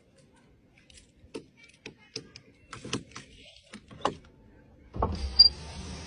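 A bunch of car keys jangling and clicking as a key is worked at a car door's lock and handle. About five seconds in there is a sudden louder knock, followed by a steady noise.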